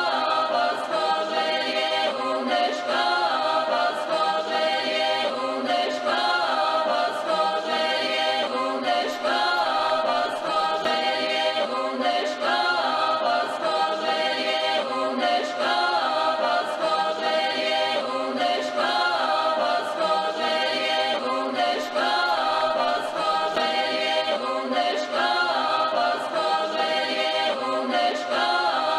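Background music: a choir of voices singing together in harmony, with no instruments heard.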